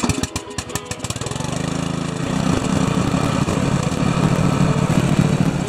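Ariens lawn tractor engine starting. Rapid, even pulses for about the first second, then it catches and settles into a steady run that grows stronger about two seconds in.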